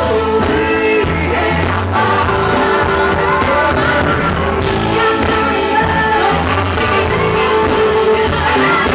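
Live funk band playing, with a woman singing lead over a steady bass line.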